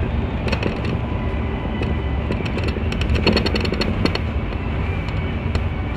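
City bus driving, heard from inside the cabin: a steady low engine and road rumble, with short clicking rattles, most of them about three to four seconds in.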